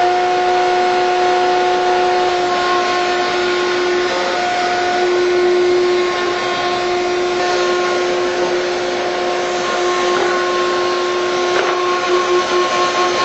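Router in a router table running at full speed with a steady high whine, a 1/8-inch roundover bit spinning while wood edges are rounded over, with dust extraction running alongside. The pitch wavers slightly and a few faint clicks come in the second half.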